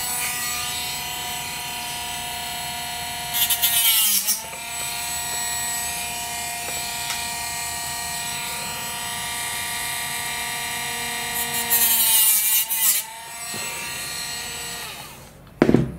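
High-speed rotary tool running steadily with a whine, cutting through the carbon push rods twice. Each cut, about four seconds in and again near the end, brings a harsh gritty rush as the motor's pitch sags under the load and then recovers. The tool winds down shortly before a sharp click.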